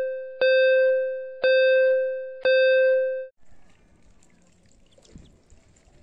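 Countdown-timer sound effect: a ringing electronic ding about once a second, each one fading, three new strikes after one carried over from before. It cuts off about three seconds in, leaving only faint background noise.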